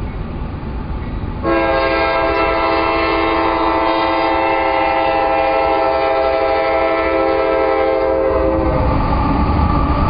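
CSX freight locomotive's multi-chime air horn sounding one long chord of about seven seconds, starting suddenly about a second and a half in. The low rumble of the passing freight train runs underneath and comes up as the horn stops near the end.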